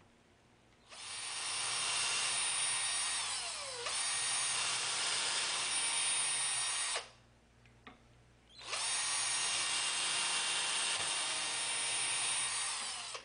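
Cordless drill boring through clamped wooden pieces. The motor whines steadily in two long runs, with a pause of about a second and a half some seven seconds in.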